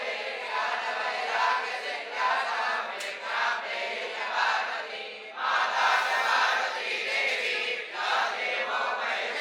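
A group of young Vedic students chanting Sanskrit mantras together in unison, in phrases with a short break about five seconds in.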